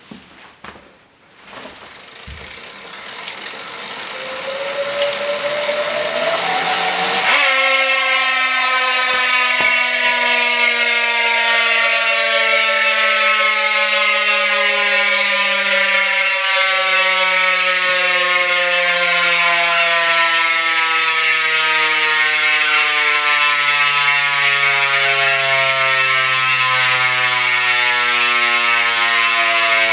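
Mavic Instant Drive 360 freehub, a 40-tooth ratchet drive, on a carbon rear wheel spinning on a stand. It whirs and rises in pitch for the first several seconds as the wheel comes up to speed. From about seven seconds in the freehub gives a loud, steady ratchet buzz as the wheel coasts, its pitch slowly falling as the wheel slows.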